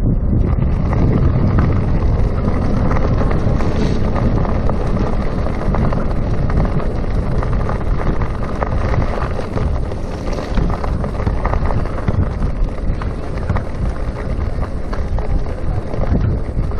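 Wind buffeting the microphone of a chest-mounted camera on a moving electric bicycle, a loud, steady rumble with scattered small clicks and rattles. No brake squeal is heard.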